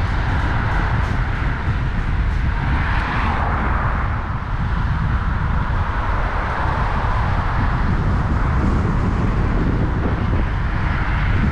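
Wind rushing over the microphone of a camera on a moving road bike, a steady low rumble, with road and tyre noise underneath.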